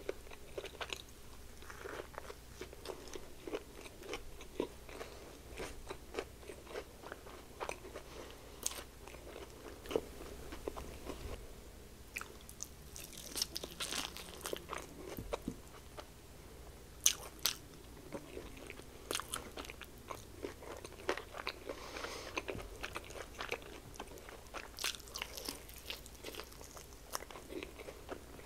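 Crunching and chewing of fried chicken: a chicken sandwich is bitten at first, then a crispy breaded chicken wing is bitten and chewed, in irregular crunches.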